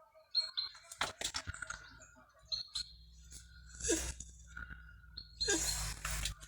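Birds with short high chirps, sharp clicks and bursts of rustling, over a low steady hum that starts about a second in.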